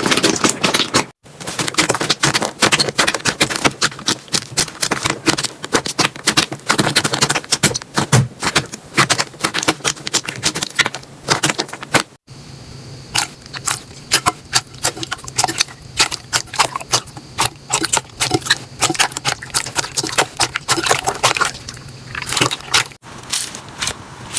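Slime being squeezed and pressed by hand, giving dense, rapid crackling clicks and pops. The sound breaks off briefly three times: about a second in, about halfway, and near the end.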